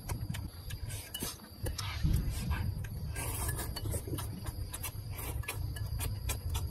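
Close-up mouth sounds of a person slurping and chewing instant noodles: wet slurps and smacks with frequent small clicks, the longest slurp about three seconds in.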